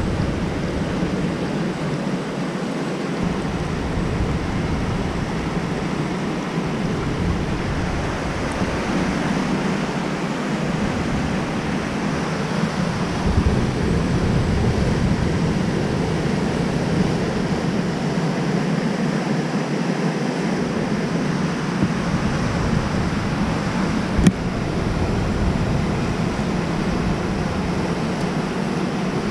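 Steady rush of white water from a river and waterfall, with wind gusting on the microphone. One brief knock about 24 seconds in.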